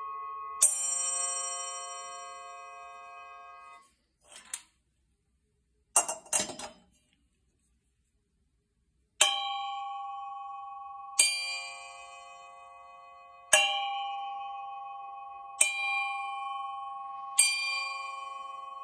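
Sabian Radia 9-inch chime cymbal struck with a wooden drumstick, ringing with a bright, bell-like tone of several clear pitches at once. One strike near the start rings for about three seconds and stops abruptly, followed by a few short dull knocks. After a pause come five strikes about two seconds apart, each left to ring out.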